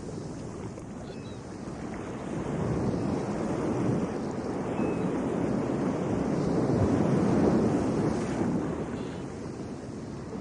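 Waves washing in: a rushing noise that slowly swells to a peak and fades again, with wind on the microphone.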